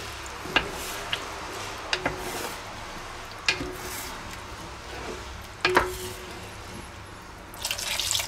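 Wooden spoon stirring a thick tomato-and-vegetable stew in a cast-iron Dutch oven, knocking against the pot every second or so, some knocks leaving a short ring. Near the end water is poured from a measuring jug into the pot with a splashing hiss.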